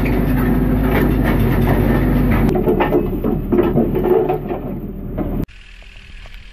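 Tescar limited-access drill rig working under load as its kelly bar turns a core barrel into very hard, fractured sandstone: a steady engine drone with constant grinding and crackling of rock under the cutting teeth. About five seconds in it drops abruptly to a quieter, steady engine hum.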